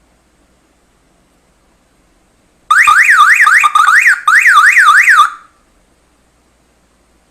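An electronic alarm siren, wired to a battery and a refrigerator door switch, wails in fast up-and-down sweeps of about three a second for about two and a half seconds. It cuts out briefly twice as the circuit is made and broken, then stops.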